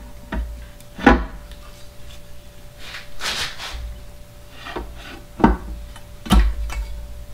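Sharp clicks and knocks of a 2JZ engine's upper oil pan being seated on the block and handled by hand, about six in all, with a longer scraping rub about three seconds in.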